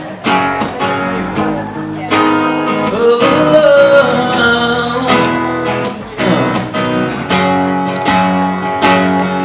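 Acoustic guitar strumming chords in a steady rhythm, with sharp accented strums about once a second, playing the instrumental intro to a pop song before the vocals come in.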